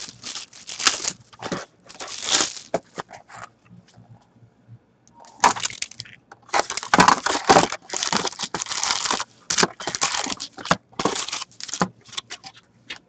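Cardboard Black Diamond hockey card box being opened and its foil-wrapped packs pulled out and laid on the table, crinkling and clicking in irregular rustling spurts, with a pause of about two seconds in the middle.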